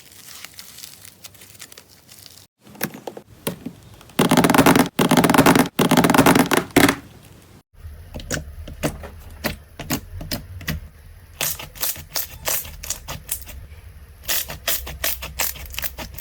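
Slime being pressed and worked by hand, giving sticky crackling and rapid clicking pops, in several short clips cut together. The loudest part is a dense stretch about four to seven seconds in, followed by quick separate clicks.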